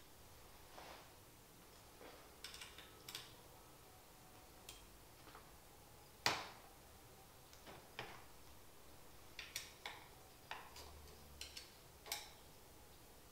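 Scattered light clicks and taps of hands working the wheel-brake clamp on a shower chair's aluminium frame, with one sharper knock about six seconds in.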